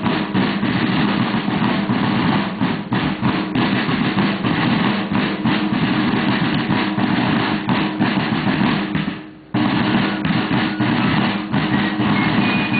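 A Civil War–style drum corps playing field snare drums in a fast, continuous beat with rolls. The drumming fades out about nine seconds in, then starts again abruptly.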